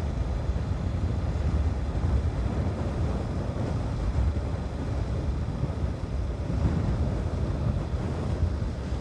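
Wind buffeting a helmet-mounted phone's microphone on a moving motorcycle: a steady low rumble.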